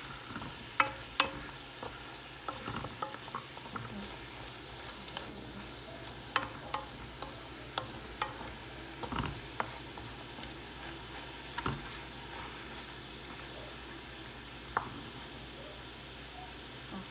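Strips of beef and sliced carrots sizzling in a stainless steel pot while a wooden spoon stirs them, with a scatter of sharp knocks as the spoon strikes the pot, the loudest about a second in.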